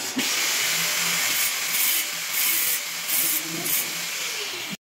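A power tool running, its sound rising and dropping several times under changing load; it cuts off abruptly near the end.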